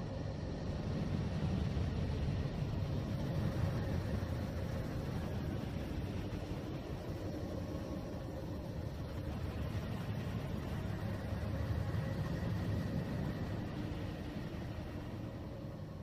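Ambient space-noise track: a steady deep rumbling noise, heavier in the bass than a hiss, with faint steady hum tones running through it and a slow, gentle rise and fall in level.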